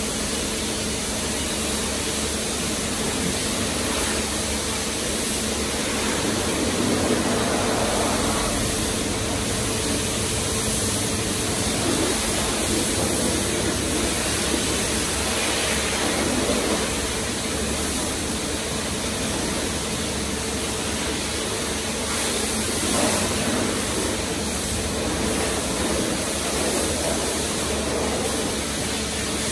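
Pressure washer jet spraying water onto a foam-covered car: a steady hiss of spray with a steady hum underneath.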